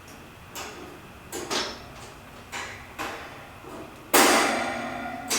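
Sheet-metal parts of a portable kerosene heater clanking as they are fitted together by hand: a few light knocks, then a loud metallic clank about four seconds in that rings on for about a second.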